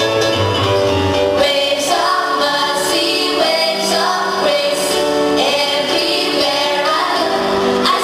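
School choir of young voices singing a hymn with instrumental accompaniment; a low bass line sits under the voices for the first second or so.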